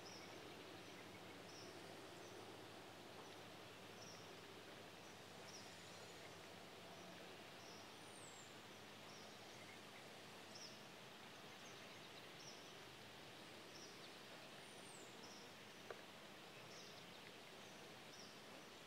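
Near silence: faint outdoor ambience, with a faint high chirp repeating about once a second and two thin descending whistles.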